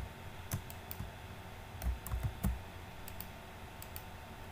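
Irregular clicks from a computer keyboard and mouse in use, about a dozen in a few seconds, with a couple of dull low thumps about two seconds in.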